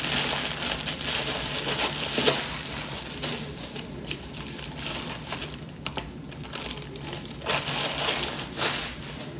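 Paper and packaging crinkling and rustling as mail is handled and opened, busiest in the first few seconds, with a sharp snap about two seconds in and more rustling near the end.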